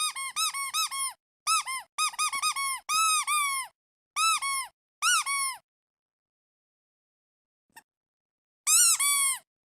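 Toy duck squeaking, squeezed over and over in quick runs of short squeaks, each one rising and falling in pitch. After a pause of about three seconds comes a last loud run near the end.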